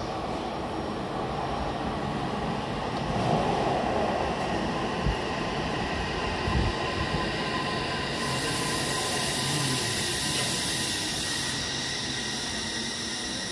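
Odakyu Line electric commuter train pulling into an underground station platform and braking to a stop: running rumble of wheels and motors with steady high whining tones. A hiss joins about eight seconds in and fades out near the end.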